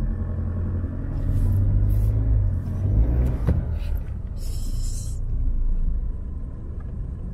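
Chevrolet pickup's 2.8-litre Duramax turbo-diesel running, a deep rumble heard inside the cab from the footwell, swelling for a couple of seconds as the accelerator pedal is worked. A sharp click about three and a half seconds in and a brief hiss about a second later.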